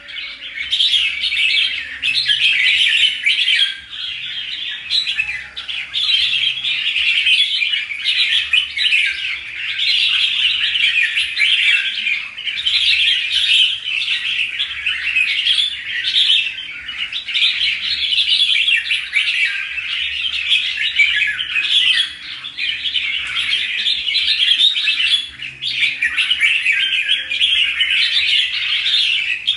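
Red-whiskered bulbul song: a continuous stream of quick chirping and chattering phrases, briefly dipping about 4 seconds in and again past the middle.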